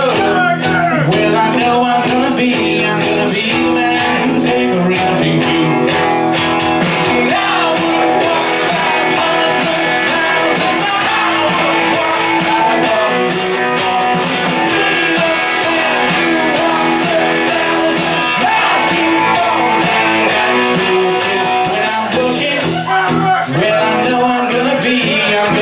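Live rock band playing an 80s pop cover: a lead singer over electric guitars and a steady beat, loud through the PA.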